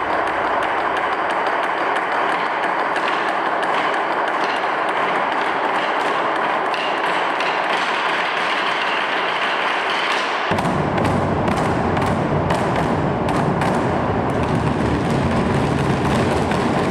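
Large Chinese barrel drums beaten with wooden sticks by several drummers in a fast, continuous rolling rhythm. About ten seconds in the drums' deep low end comes in and separate strokes stand out more.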